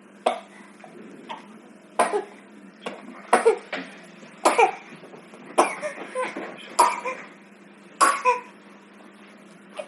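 A baby coughing over and over: about eight short, sharp coughs roughly a second apart, some coming in quick pairs.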